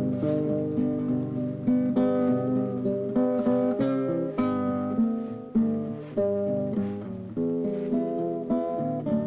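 Acoustic guitar music: plucked and strummed chords, each ringing on, struck every half second to a second.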